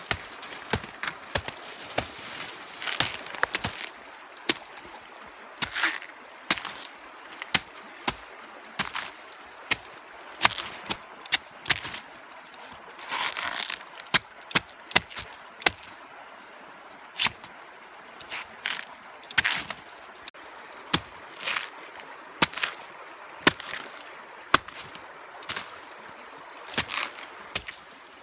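Irregular sharp knocks and short scrapes, sometimes several a second with pauses between, from hand work with a blade such as chopping and cutting.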